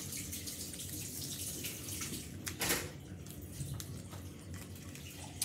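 Paper and sellotape being handled close up: continual rustling and crinkling of the paper squishy as it is stuffed and pressed, with one louder crackle a little past halfway.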